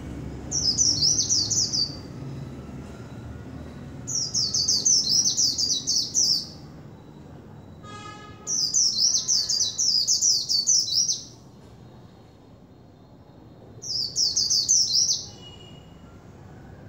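White-eye (khuyên) singing in four bouts of rapid, high-pitched warbling notes, each lasting one to three seconds, with short pauses between.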